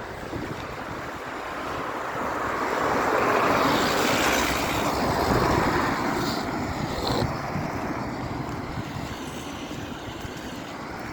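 Outdoor rushing noise with wind buffeting the microphone; a broad rush swells over a few seconds in the middle, then fades back to the steady background.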